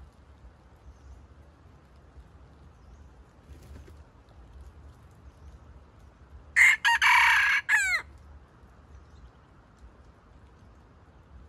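Red junglefowl rooster crowing once, about halfway through: a short, loud crow of about a second and a half that ends on a falling note.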